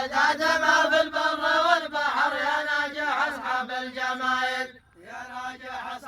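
Male voices chanting a slow, drawn-out melody in long held notes, the opening chant of an Asiri dammah folk-poetry performance, with a short breath pause about three-quarters of the way through.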